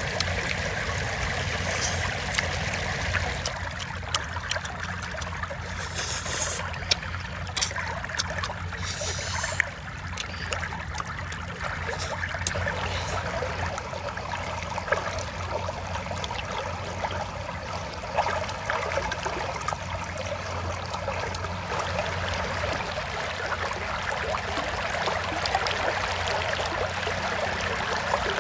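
Steady rush of shallow water flowing through a flooded rice field, with scattered short clicks over it.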